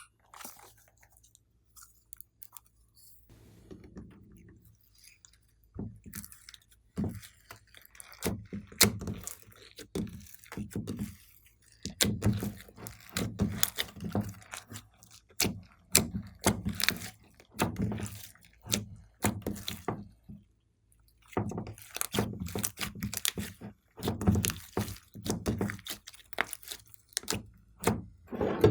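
Slime being kneaded and squished by hand: repeated sticky, wet crackles and squelches. They come faint and sparse at first, then steadily about once or twice a second, with a brief pause about two-thirds of the way through.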